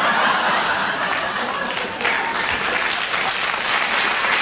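Studio audience applauding, a steady dense clapping reacting to a punchline.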